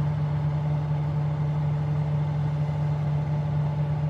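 A steady, unchanging low mechanical hum, like an engine's drone.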